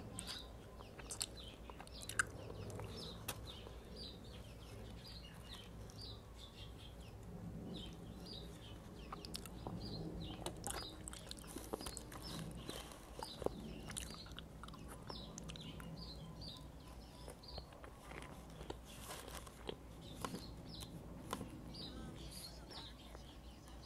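Close-up chewing and biting of a soft rice-paper summer roll, with small birds chirping repeatedly in the background.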